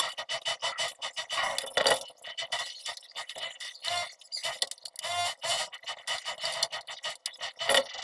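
White PP-R plastic water pipes clicking, knocking and scraping against one another as they are handled, in a rapid irregular run of sharp clacks.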